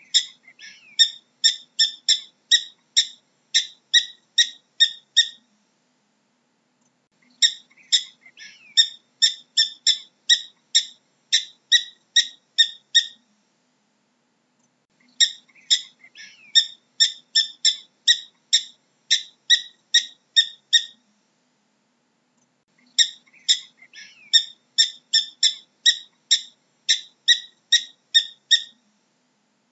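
Prairie dog barking: sharp, high, chirp-like calls repeated about two to three a second. They come in four bouts of five to six seconds each, with a pause of about two seconds between bouts.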